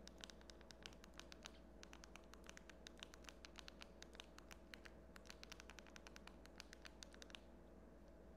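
Near silence with faint, rapid clicking, about eight clicks a second, as a code is entered letter by letter on a Fire TV on-screen keyboard with its remote. There is a short break near the end.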